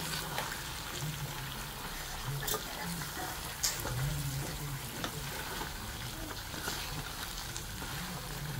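Meat sizzling in an aluminium pot, stirred with a wooden spoon: a steady sizzle with a few light knocks of the spoon against the pot.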